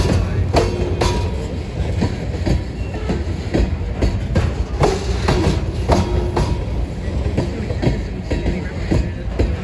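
Freight train of covered grain hopper cars rolling past with a steady low rumble, the wheels clicking over rail joints about once or twice a second, with brief faint metallic tones from the wheels.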